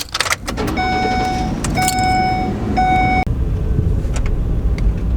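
A few clicks, then a vehicle's warning chime sounds three times over a low engine rumble. The chime stops a little over three seconds in and the engine keeps running.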